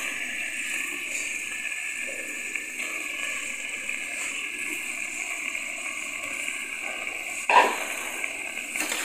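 Spice masala sizzling steadily in a pressure cooker as raw chicken pieces are added, with one sudden wet splat about seven and a half seconds in as more chicken drops into the pot.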